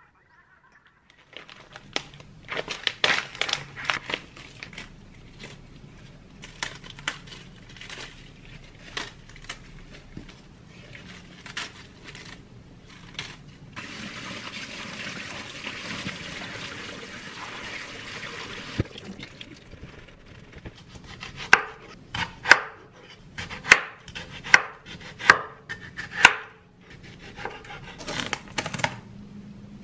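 Kitchen sounds: scattered clicks and knocks, then a tap running into a steel sink for about five seconds while vegetables are rinsed, then a run of sharp crinkling snaps, with cling film pulled off its roll near the end.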